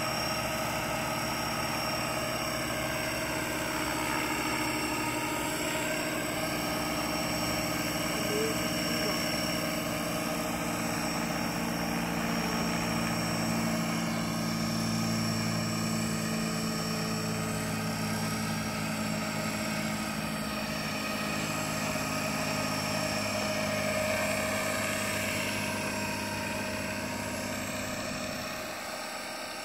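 Radio-controlled scale helicopter (Align 500-class model in an Agusta A109K scale body) flying low passes: a steady whine of its rotors and drive that sweeps in pitch as it goes by, about four seconds in and again near the end.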